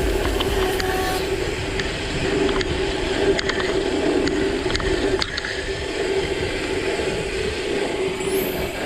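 Mountain bike's tyres rolling fast down a rough concrete road: a steady rolling hum and road noise, with scattered clicks and rattles from the bike over the bumps.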